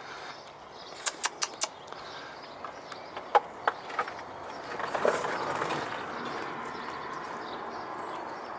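A cat chewing and tugging at a plant stem: a quick run of four sharp clicks about a second in, a few single clicks a couple of seconds later, then a soft rustling from about halfway through.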